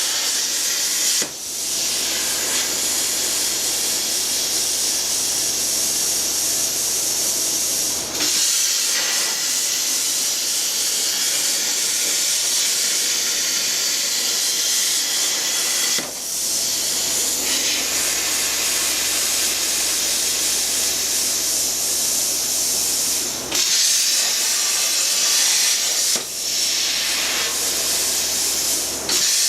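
Plasma cutter cutting sheet metal: a steady, loud hiss of air and arc, broken by brief dips about six times as the cut pauses and restarts.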